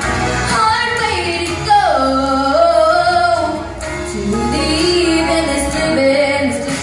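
A young girl singing into a handheld microphone over instrumental accompaniment, amplified through a PA; she holds long notes that bend in pitch.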